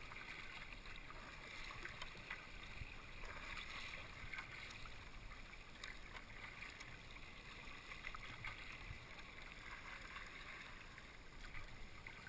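Water trickling and splashing around a kayak as it is paddled: a steady, fairly quiet wash with a few faint ticks.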